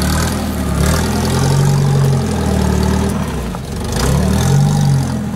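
UAZ-469 engine working under load as the off-roader climbs through deep mud. The revs rise about a second in, sag around the middle, then rise and fall again near the end.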